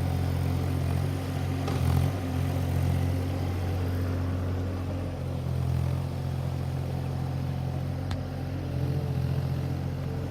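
JCB30Plus mini excavator's diesel engine running steadily while it digs, its hum shifting as the load changes, with two sharp knocks, one about two seconds in and one near the end.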